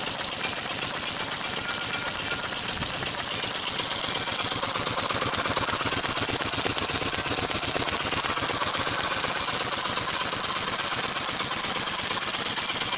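Gas-powered airsoft minigun, running on a nitrogen tank, firing one long unbroken burst: a fast, continuous mechanical rattle of shots with the spinning barrel cluster behind it.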